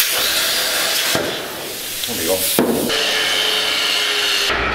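Hypertherm plasma cutter hissing as it cuts steel. A little past halfway it gives way to an angle grinder running against steel with a steady whine.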